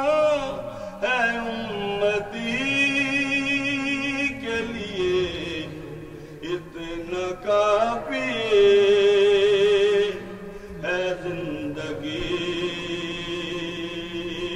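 A man's solo, unaccompanied voice chanting a devotional poem (a naat) in drawn-out phrases, with two long, wavering held notes in the second half.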